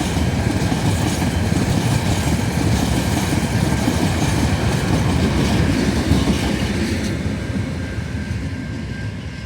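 Freight wagons of a TasRail cement train rolling past, their wheels clacking over the rail joints. The sound grows fainter from about seven seconds in.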